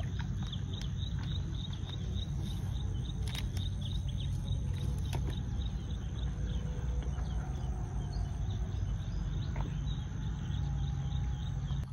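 Riverside ambience: a steady low rumble, with insects chirping in a quick repeating series high above it and a few faint bird calls.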